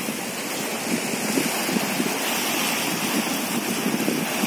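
Steady rush of sea surf washing and breaking over shoreline rocks.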